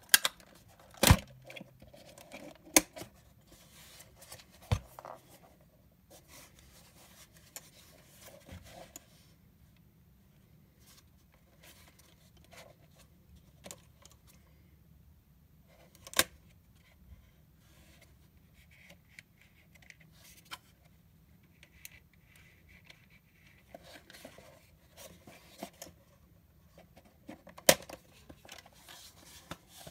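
Polaroid SX-70 Land Camera Model 2 handled and unfolded, with a few sharp clicks and snaps of its folding body and parts spread through, and soft rubbing and handling noise between them.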